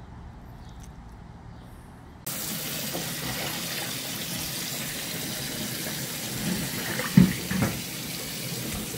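Tap water running in a steady rush that starts abruptly a couple of seconds in, with two short knocks near the end.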